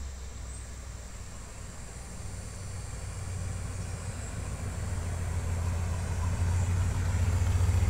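1956 Ford Thunderbird's 312 V8 with dual exhaust, a low rumble that grows steadily louder as the car drives up and passes close by.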